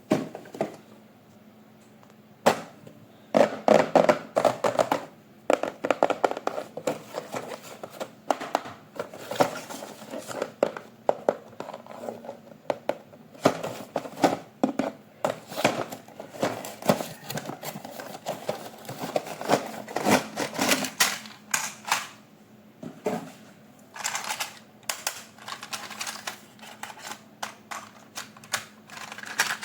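Hands handling toy packaging and parts: a dense, irregular run of clicks, taps and rustles of plastic and cardboard.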